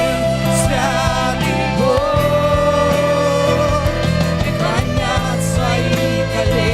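Live Christian worship music: a singer holding long, wavering notes over a band with a steady bass and a couple of cymbal crashes.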